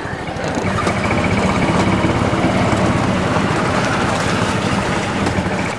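Golf buggy driving steadily along a road: its motor running, with a continuous rumble of tyre and road noise.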